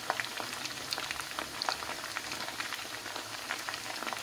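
Pieces of karaage chicken deep-frying in hot oil during their second fry: a steady sizzle scattered with many small crackles and pops.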